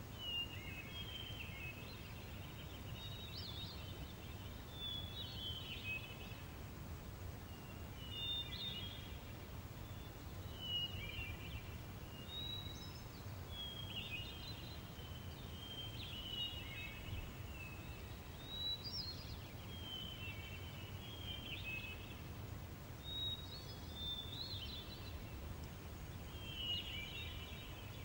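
Small birds chirping in short phrases, one every second or two, over a steady low outdoor rumble.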